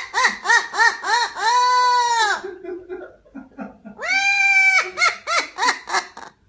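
A parrot making loud, pitched, bleat-like calls: runs of quick rising-and-falling notes broken by two long held notes, one about two seconds in and one about four seconds in.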